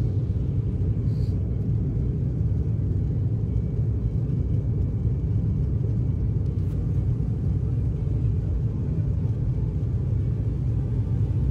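Cabin noise of an Embraer 190 on its takeoff roll, heard inside the cabin: its two turbofan engines at takeoff power, a steady deep rumble.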